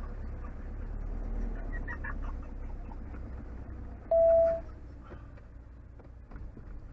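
Motorhome engine running with a low rumble while driving slowly, with a single short beep about four seconds in.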